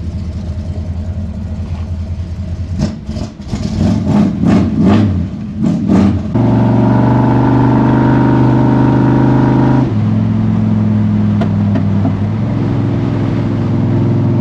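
1972 Chevy C20 pickup under way, its engine pulling steadily. About ten seconds in the engine note drops as the truck shifts up a gear, then climbs again. Irregular clunks and knocks come in the first few seconds.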